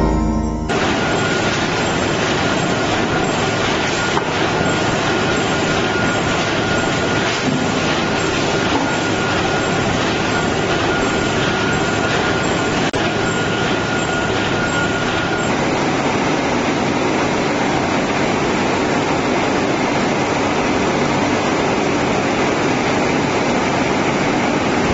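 Sterilization pouch reel production machinery running with a steady mechanical noise. A faint high whine runs alongside it and stops about 15 seconds in.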